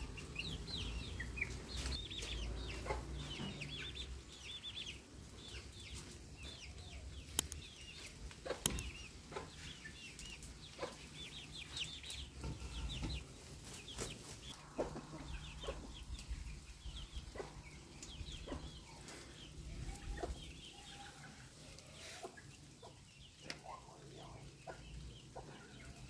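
Backyard chickens: a steady run of short high peeps from chicks with some clucking from the hens, and scattered sharp clicks.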